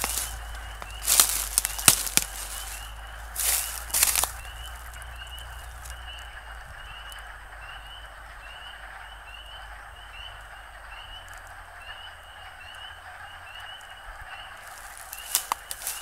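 Chorus of frogs calling, high short rising notes repeating several times a second over a steady chatter of many more. A few loud rustling crunches, like footsteps in dry leaf litter, come in the first four seconds.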